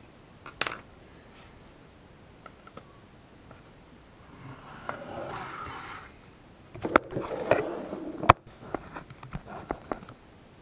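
A clothes iron being handled, turned soleplate-up and set down on a wooden tabletop: a rustling scrape, then a run of knocks and clatter ending in one sharp knock, followed by a few light clicks. A single sharp click just after the start.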